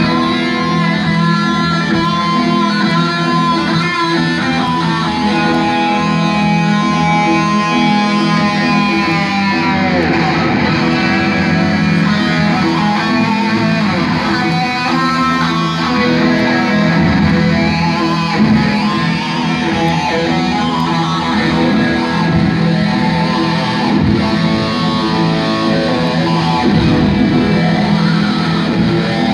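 Electric guitar played live through a concert PA, a heavy metal guitar line of long held notes with pitch bends, over a steady low backing.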